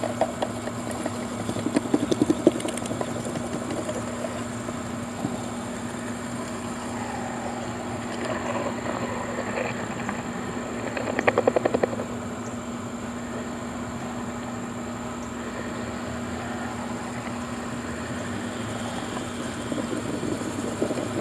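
Power drill boring a hole into the earth with a spade bit, running with a steady hum, and two short bouts of rapid chattering as the bit bites, about two seconds in and again about eleven seconds in.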